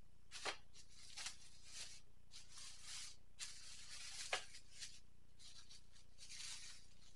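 Clear plastic packaging around raw ribs crinkling and rustling as it is handled and unwrapped. There is a sharper crackle about half a second in and another just over four seconds in.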